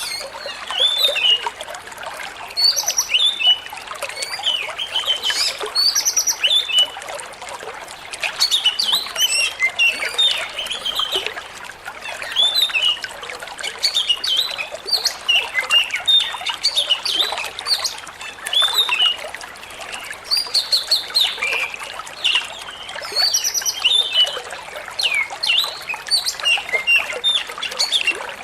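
Oriental magpie-robin (kacer) singing in repeated bursts of quick, varied chirps and whistles over the steady trickle of flowing water.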